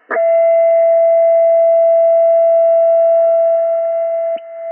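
A loud, steady whistle-like tone from the Yaesu FTDX10 transceiver's speaker, with fainter higher overtones. It is another station's unmodulated carrier, someone tuning up on top of the operating frequency, which the operator takes for deliberate, malicious interference. A click comes just before the end, after which the tone goes on a little quieter.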